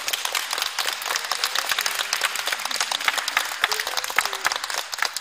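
Audience applauding: many hands clapping steadily, with a few voices faintly under it.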